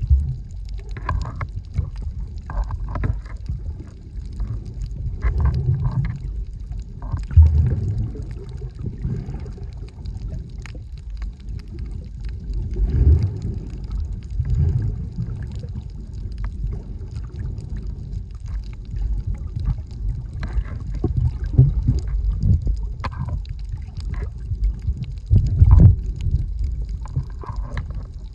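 Muffled underwater water noise picked up by a camera below the surface, a low steady rush with irregular surges and faint splashy sounds, swelling most strongly about seven seconds in and again near the end.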